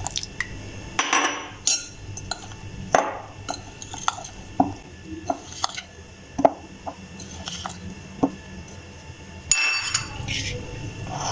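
Metal spoon stirring a crumbly mix of bread crumbs, flour and water in a ribbed glass bowl, with repeated clinks and scrapes of the spoon against the glass.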